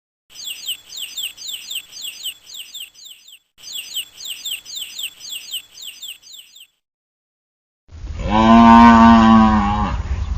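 Two bouts of rapid bird chirps, each chirp a quick high note falling in pitch, at about five a second. After a pause, a cow gives one long, loud moo near the end.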